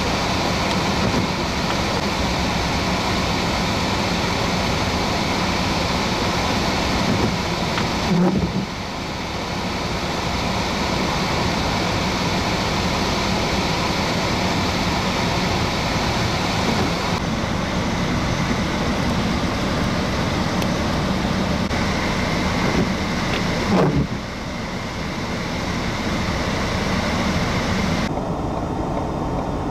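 Road traffic on a snow-covered street: cars and vans driving past, a steady rush of engines and tyres. The sound changes abruptly a few times, about 8, 17, 24 and 28 seconds in, where the shots change.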